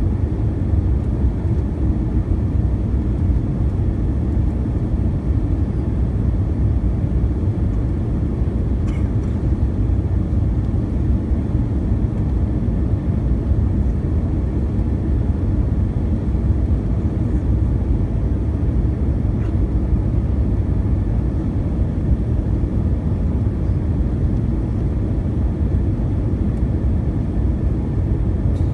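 Steady low rumble of jet engine and airflow noise inside the cabin of an Airbus A320 descending on approach to land.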